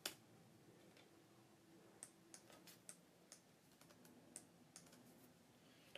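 Faint, irregular clicks of a computer mouse and keyboard, a dozen or so, some in quick succession.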